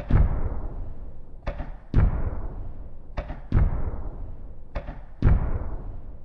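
Firework shells bursting in the air, four times. Each burst is a sharp crack followed by a heavy boom that fades away over about a second.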